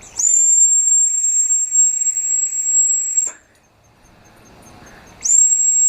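Dog whistle blown in two long blasts, each a steady, very high whistle with a breathy hiss, sliding up briefly as it starts. The first lasts about three seconds; the second starts about five seconds in.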